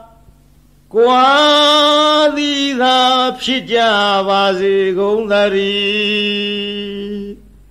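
A male monk chanting Buddhist paritta in Burmese in a slow melodic recitation, one voice holding long, drawn-out notes. It starts about a second in after a short breath pause and stops shortly before the end.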